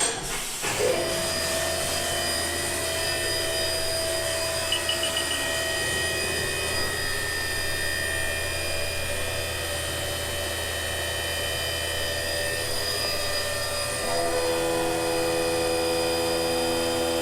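CNC milling machine running and cutting a metal part, a steady whine made of several held tones over a low hum. About 14 seconds in the tones change and the sound gets slightly louder.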